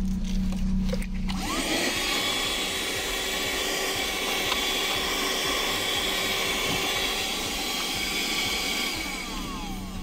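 Piranha PVC-4005 12-volt car handheld vacuum running, its small motor whining with the rush of suction as the nozzle cleans out a car ashtray. About a second and a half in, the sound shifts to a higher, hissier rushing whine, which falls away near the end.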